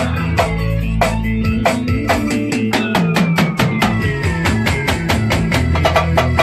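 A band playing, with a drum kit keeping a quick, even beat over bass and guitar, and one long note sliding slowly downward through the middle.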